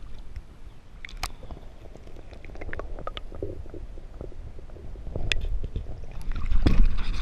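Bumping and rustling of close handling, then water sloshing and splashing louder near the end as a largemouth bass is let go back into the pond.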